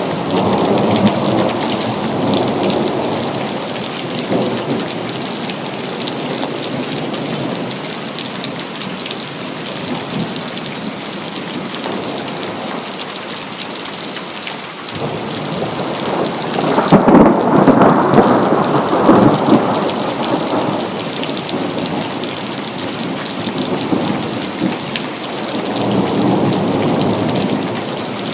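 Steady rain with thunder rumbling several times: once at the start, loudest about two-thirds of the way through, and again near the end.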